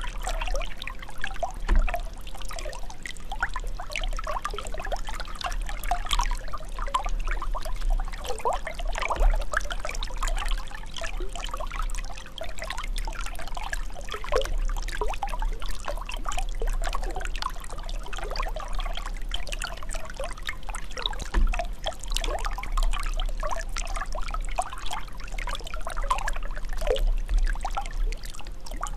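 Continuous bubbling, gurgling water, steady throughout, with a low rumble underneath.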